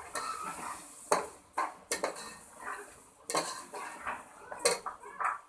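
Spoon stirring peas into keema in a cooking pot: scraping against the pan, with about four sharp clanks against its sides.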